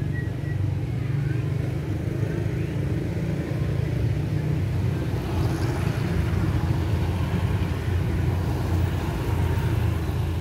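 Road traffic: a steady low rumble of motor vehicle engines on the street.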